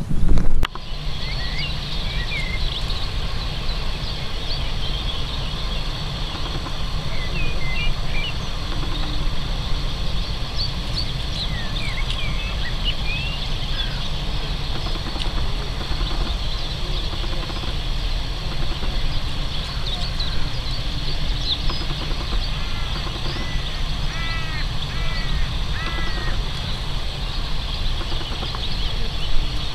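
Small songbirds chirping: scattered short calls, then a run of repeated arched notes about three-quarters of the way through, over a steady low rumble.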